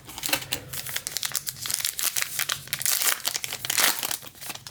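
A trading-card pack wrapper being torn open and crinkled in the hands, an irregular run of crackling and rustling.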